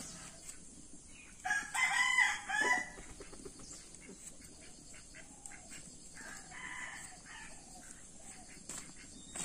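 A rooster crows loudly, about one and a half seconds in, for roughly a second and a half. A fainter crow follows around six seconds in.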